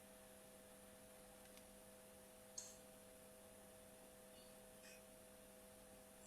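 Near silence: a faint steady electrical hum, with one brief faint click about two and a half seconds in.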